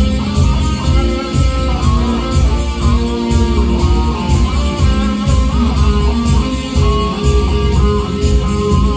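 Yamaha electric guitar playing an instrumental passage, a melodic line of held single notes, over a steady low bass backing.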